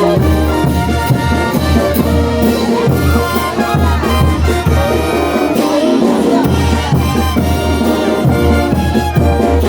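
Bolivian brass band playing carnival dance music: trumpets and trombones in unison over a steady bass-drum beat. The drum drops out briefly a little past the middle.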